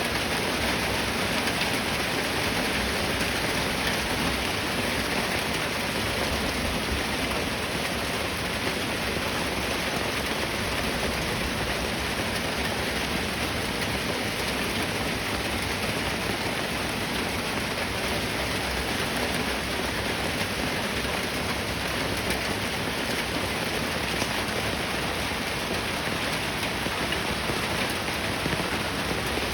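Steady, even hiss of rain, unchanging throughout.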